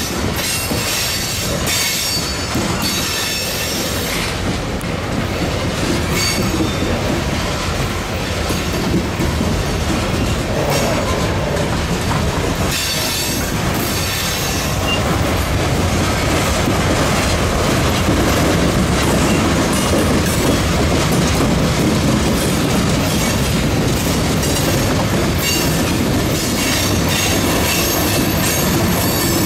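Freight train of empty open-top hopper cars rolling past, steel wheels clattering and clacking over the rail joints in a continuous loud rumble that grows somewhat louder in the second half.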